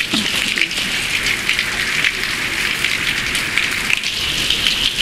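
Heavy rain falling steadily onto a wet street and pavement, a dense even hiss of countless drops.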